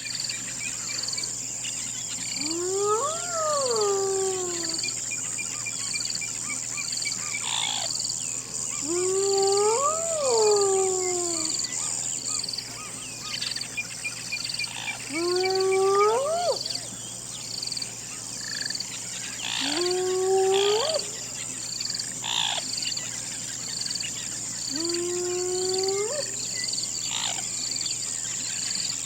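Hyena calling: five long hooting calls, several seconds apart, each gliding up in pitch, the first two then falling away again. A steady high insect drone with an even pulsing runs behind them.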